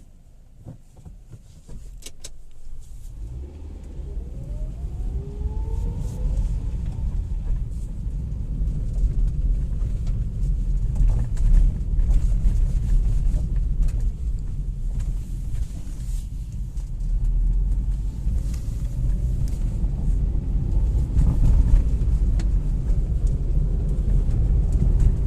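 Hyundai Grand i10 pulling away and driving on the road: the low rumble of engine and road noise builds up after a couple of seconds, with the engine's pitch rising as it revs up through a gear about four to six seconds in. No gearbox hum stands out: the replacement used manual gearbox is running quietly.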